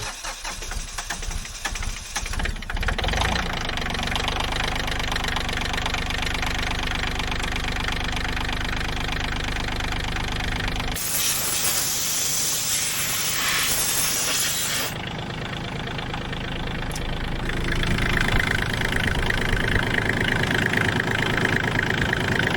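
Bobcat CT122 compact tractor's diesel engine running steadily at idle, on a test run after its leaking fuel return line was replaced. Midway there are about four seconds of steady hiss.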